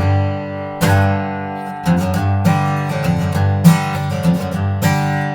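Martin X Series Dreadnought acoustic guitar with a koa-pattern high-pressure-laminate body, strummed chords ringing out, about one strum a second.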